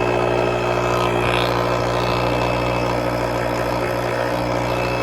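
The small electric air compressor of a portable jump starter running steadily and loudly.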